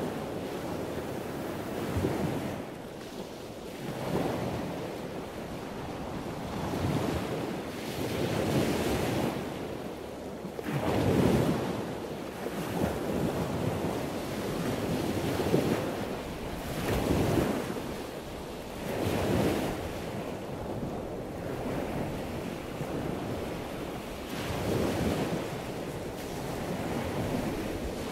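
Ocean surf: waves washing in and breaking, the rushing swelling and easing every two seconds or so.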